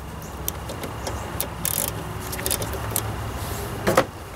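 Hand tools clicking and knocking on metal tractor parts while the throttle linkage is being undone, with a sharp metallic knock near the end, over a steady low hum.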